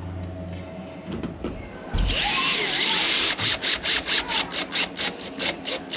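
A power tool starts about two seconds in, runs steadily for about a second, then cuts in and out about six times a second.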